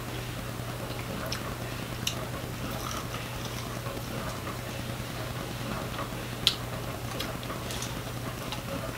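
Close-miked eating of a chicken wing: scattered short clicks and smacks of biting and chewing, the sharpest one about six and a half seconds in, over a steady low hum.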